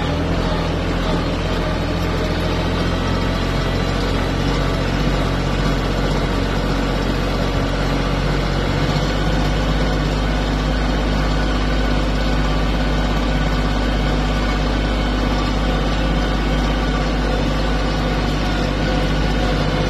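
Kioti CK2610 compact tractor's three-cylinder diesel engine running steadily as the tractor drives along.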